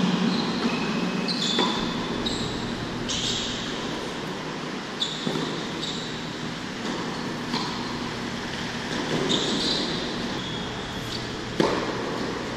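Tennis rally on an indoor hard court: racquets striking the ball and the ball bouncing, with brief high sneaker squeaks on the court surface between shots. The loudest, sharpest racquet hit comes near the end. A steady hum of the hall's ventilation runs underneath.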